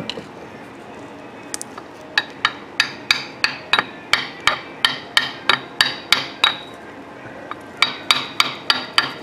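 Hammer tapping a steel socket used as a seal driver, pressing a new front crankshaft oil seal into the LS engine's timing cover. Light metallic taps with a short ring, about three a second, in two runs with a pause of about a second between them.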